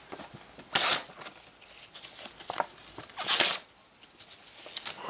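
A photographic print being torn by hand: two sharp rips, just under a second in and again about three and a half seconds in, with paper crinkling and rustling between.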